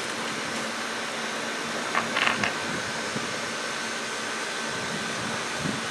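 Steady whooshing hum of an outdoor air-conditioning unit's fan running, with a faint steady whine joining about two seconds in.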